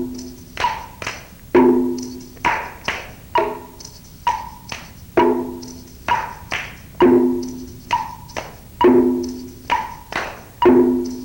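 Exercise accompaniment music: a steady beat of wood-block-like percussion, several strikes a second, with a short low note and a higher tone repeating about every two seconds.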